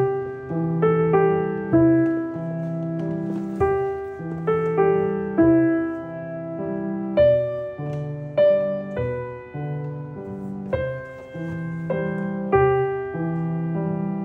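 Background piano music: a gentle, steady run of chords and melody notes.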